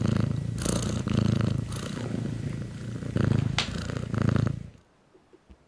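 Small black cat purring close to the microphone, the purr swelling and fading about once a second with its breathing, stopping near the end.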